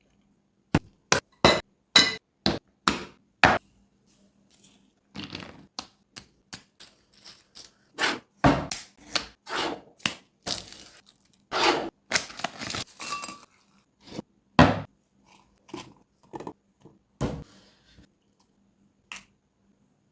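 Food-preparation noises: a quick run of sharp knocks about two a second, then crinkling, tearing and scraping sounds mixed with further knocks and clinks of kitchenware.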